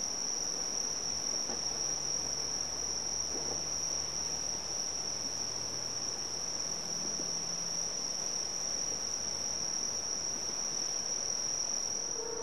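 Crickets trilling in one unbroken, steady high-pitched chorus.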